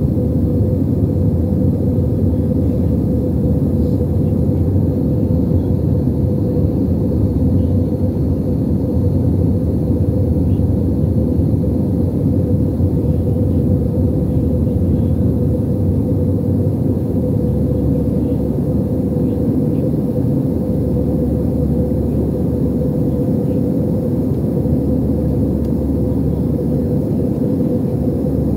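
Steady cabin roar of an Airbus A320-family airliner in flight: engine and airflow noise heard from a window seat over the wing, with a steady hum running through it.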